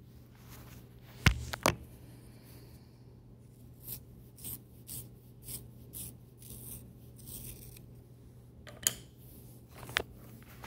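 Eyebrow pencil being sharpened in a small handheld sharpener: a run of short scraping strokes, about two a second, as the pencil is turned. Two sharp clicks of handling come before it, and another click or two near the end.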